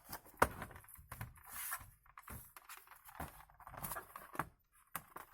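Thin plastic back cover of a keyboard case being pressed and snapped into place: a string of light plastic clicks and knocks with faint rubbing between them.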